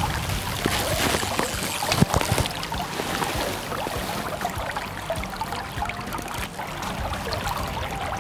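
Shallow river water running and splashing around a wading angler as a hooked grayling is played on a fly rod and scooped into a landing net, with a sharper splash about two seconds in.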